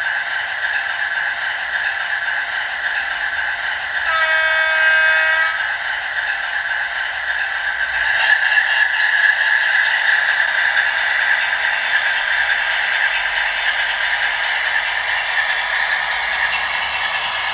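Hornby factory-fitted DCC sound decoder in a Class 60 model diesel locomotive, playing its engine running sound through the model's small speaker, thin and without bass. About four seconds in it sounds a single horn blast lasting about a second and a half, and from about eight seconds in the engine sound grows louder.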